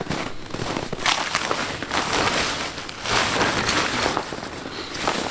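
Irregular crackling and crunching of a person moving about on packed, frozen snow, with rustling, in uneven swells.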